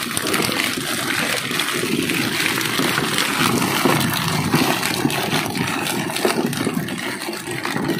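Steady rushing and splashing of water, without a clear rhythm or a single loud event.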